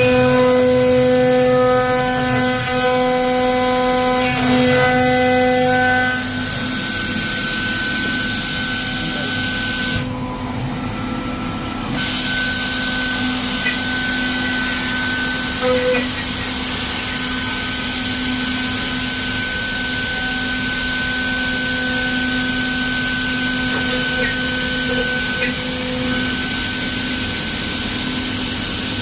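CNC router spindle running with a steady whine over a high hiss, the sound of machine routing in wood. The hiss drops out for a couple of seconds about ten seconds in.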